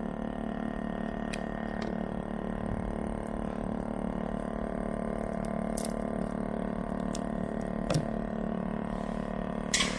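A steady electrical machine hum, with a few light clicks and a louder click near the end.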